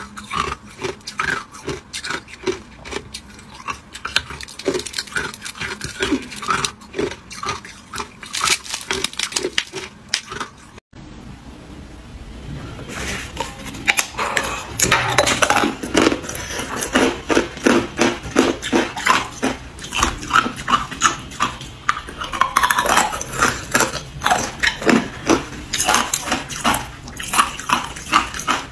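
Ice being bitten and chewed, a fast run of sharp crisp cracks and crunches. After a cut about eleven seconds in, the crunching of a clear block of moulded ice cubes is louder and denser.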